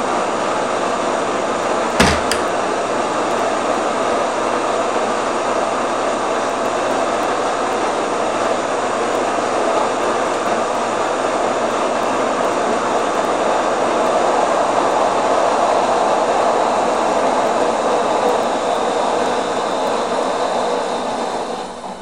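Ankarsrum stand mixer running steadily, its dough hook kneading bread dough in the turning steel bowl. There is a sharp click about two seconds in. The sound grows a little louder midway, then drops near the end.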